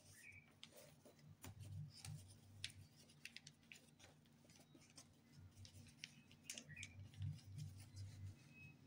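Faint crinkling and crackling of notebook paper being folded and creased by hand, with scattered small ticks and a few soft low bumps of handling against the table.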